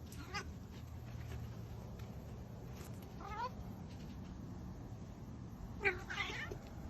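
A cat meowing three times, spaced a few seconds apart, the last meow the loudest, over a steady low hum.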